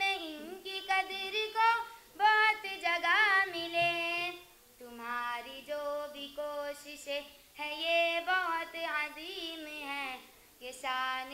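A girl singing lines of an Urdu verse poem (nazm) solo. Her voice carries melodic phrases with held and gliding notes, broken by short pauses.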